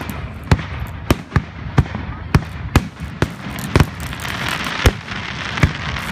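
Aerial fireworks shells bursting in an uneven rapid series of sharp bangs, about two a second, with a hissing noise building in the second half.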